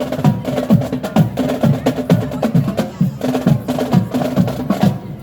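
Marching band percussion playing a fast rhythm of drum strokes, several a second, each stroke with a low tone that drops in pitch.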